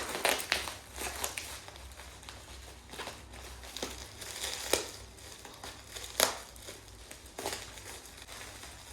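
Packaging being torn open and crumpled by hand: irregular crinkling and rustling with sharp crackles, the loudest near the start and about six seconds in.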